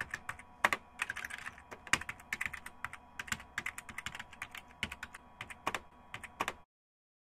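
Typing on a computer keyboard: quick, uneven key clicks that stop about six and a half seconds in.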